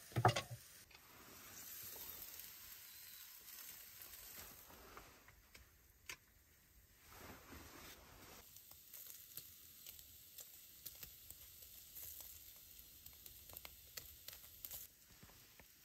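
Quiet handling sounds at a wooden stump: a sharp knock of the knife just after the start as peppers are cut, a single sharp click about six seconds in, then a scatter of faint ticks and crackles.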